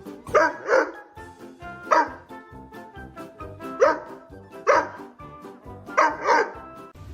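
A dog barking seven times at uneven intervals, some barks coming in quick pairs, over background music.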